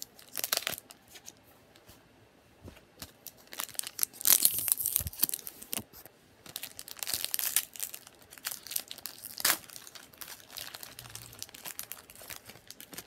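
Pokémon booster pack's foil wrapper being torn open and crinkled in the hands, an irregular run of tearing and crinkling that is loudest about four seconds in.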